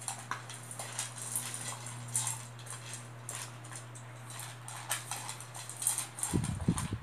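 A dog and a cat eating dry food from stainless steel bowls: many quick crunches and clicks of kibble and teeth against the metal, louder near the end.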